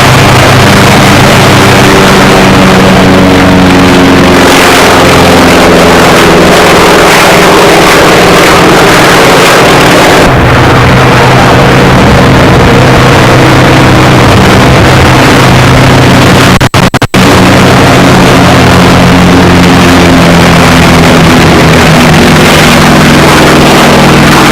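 Piston aircraft engine running loud and steady on the ground, its pitch and tone shifting about ten seconds in. The recording briefly drops out a few times about two-thirds of the way through.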